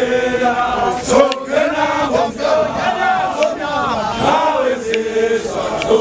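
A group of Ndebele men chanting and singing together, many voices overlapping with held and sliding notes.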